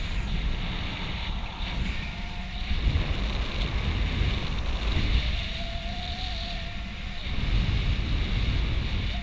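Airflow of paraglider flight buffeting an action camera's microphone: a heavy, gusty wind rumble that swells and eases.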